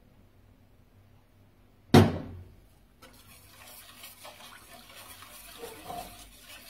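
A single sharp knock about two seconds in, then a steady liquid swishing with light scrapes: béchamel sauce being stirred in a saucepan.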